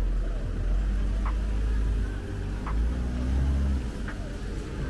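Low rumble of a motor vehicle passing close by, heavy for about four seconds and then easing off, with a faint short tick repeating about every second and a half.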